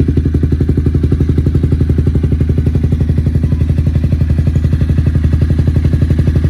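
Honda CBR250 motorcycle engine idling steadily through an R9 aftermarket exhaust, with an even, unchanging run of exhaust pulses.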